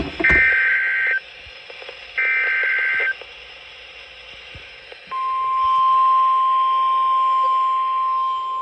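Emergency Alert System SAME digital header: two harsh, buzzy data bursts about a second apart, the last of the usual three. After a two-second pause, a steady single-pitch alert tone begins about five seconds in: the NOAA Weather Radio 1050 Hz warning alarm tone, which signals that a new warning, here a severe thunderstorm warning, is about to be read.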